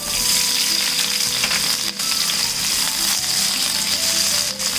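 Sliced onions hitting hot ghee and oil in a stainless steel pan, sizzling loudly from the moment they land, and stirred with a wooden spoon as they fry.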